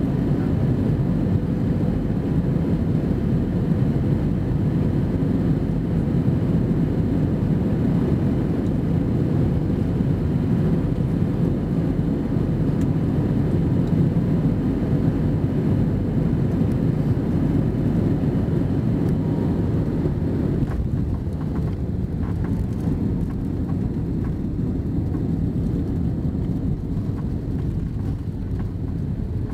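Airbus A320 cabin noise on final approach: a steady rumble of the engines and rushing air. About two-thirds of the way through, the higher hiss drops away and the rumble eases a little as the aircraft reaches the runway, with a few faint knocks.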